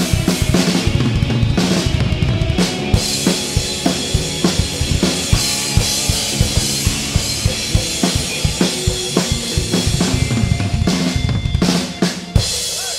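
Drum kit played live with the band: rapid bass drum strokes, snare and crashing cymbals over sustained guitar tones, closing on a final loud hit near the end.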